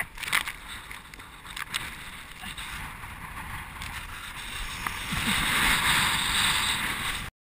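Breaking surf and splashing whitewater on an action camera's microphone at water level, with a few sharp splashes and knocks in the first two seconds. The rushing water noise builds louder about five seconds in, then cuts off abruptly near the end.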